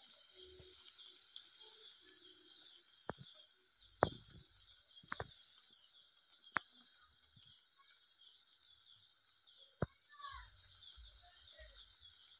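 Vegetable chops deep-frying in hot oil in an iron kadai: a faint, steady sizzle, with a handful of sharp pops.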